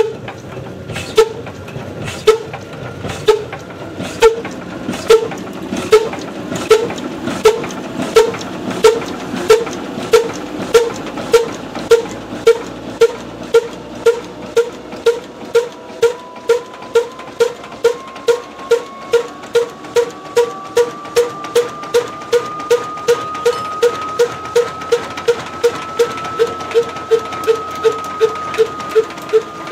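Old single-cylinder horizontal diesel flour-mill engine running, its exhaust beats ringing sharply through an inverted metal cup fitted on the silencer. The beats quicken from about one a second to over two a second as the engine picks up speed, then hold steady.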